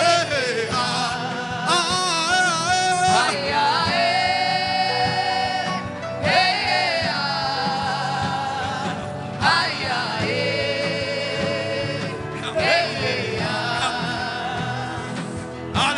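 Gospel worship music with a voice singing long, wavering held notes without clear words, in phrases of about three seconds with short breaks between them.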